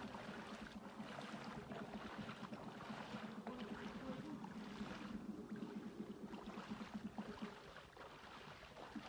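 Floodwater flowing across a submerged road and bridge, with a low steady hum underneath that fades out near the end.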